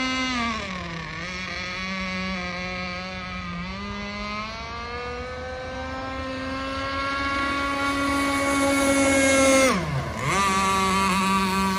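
Gasoline-powered RC speed boat's small two-stroke engine buzzing at speed. Its pitch drops about a second in, climbs again, and holds high. Near the end it is loudest, then its pitch dips sharply and comes back up.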